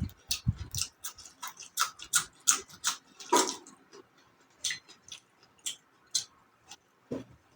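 Mouth noises of someone eating close to the microphone: irregular wet smacking and chewing clicks, several a second, with a couple of low thumps near the start.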